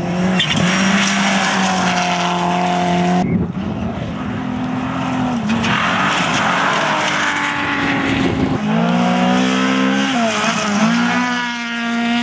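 Rally cars passing at speed on a gravel stage, engines held high and dipping briefly at gear changes several times, over the steady hiss of tyres on loose gravel. There is an abrupt change about three seconds in where one car gives way to the next.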